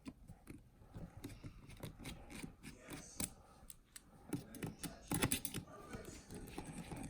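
Scattered light clicks and taps of small parts being handled during a Mac Mini teardown, with a quick cluster of clicks about five seconds in.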